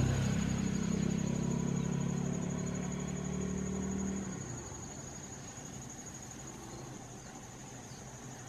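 A motor vehicle's engine hums steadily and cuts out about four seconds in. Under it, an insect keeps up a steady high-pitched trill.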